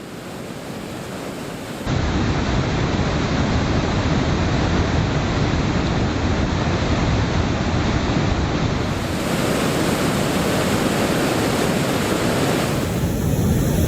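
Loud, steady rush of river falls and rapids, with no pitch or rhythm. It starts suddenly about two seconds in after a quieter stretch.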